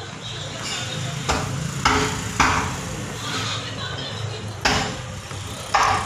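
About five sharp metal knocks and clanks from a steel door swinging and shutting under a newly fitted overhead hydraulic door closer, which is being tested for its closing speed. A steady low rumble runs underneath.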